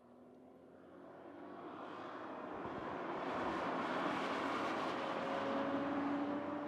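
Toyota GR Supra's turbocharged straight-six engine under power, growing steadily louder as the car approaches and passes, loudest about four to six seconds in, with the engine note rising slightly before it eases off as the car pulls away.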